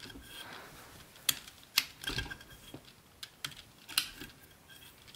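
Small, irregular clicks and ticks as fingers loop yarn onto the metal needles in the plastic cylinder of a 3D-printed circular sock knitting machine. There are a few sharper clicks, about a second and a half apart, over quieter handling sounds.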